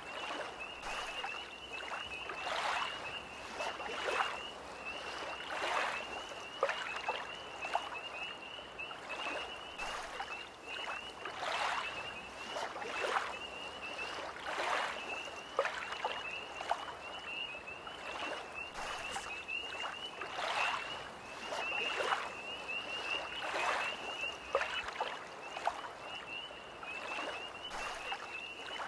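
Small lake waves lapping and splashing in uneven washes every second or two, under an unbroken high, rapid trilling chorus of tree frogs.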